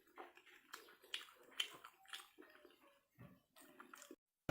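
Faint chewing and mouth noises of a person eating: scattered short wet clicks and smacks that stop abruptly near the end.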